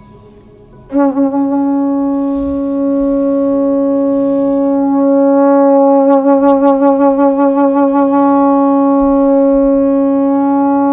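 A conch shell (shankh) blown in one long, steady note that starts about a second in, with a stretch of pulsing waver in the middle.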